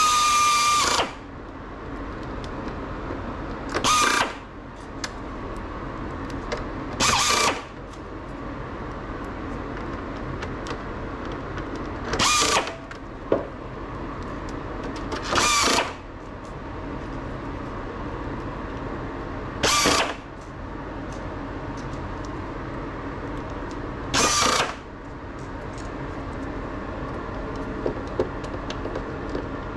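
A small powered workbench tool running in short bursts, each under a second, about seven times at uneven gaps of three to five seconds, with a steady hum between the bursts.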